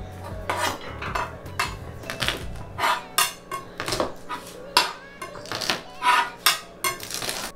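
Chef's knife on a plastic cutting board as peeled garlic cloves are pressed and crushed under the flat of the blade: a quick, uneven series of sharp knocks.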